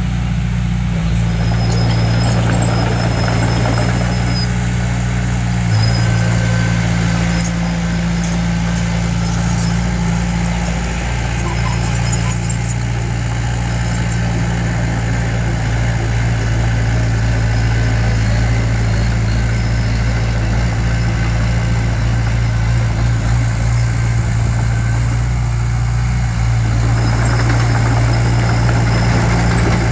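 Diesel engine of a heavy construction machine running steadily at a near-constant speed, a low continuous hum.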